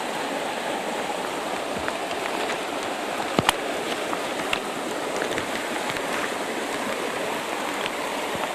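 Mountain stream rushing steadily over rocks, with one sharp click about three and a half seconds in.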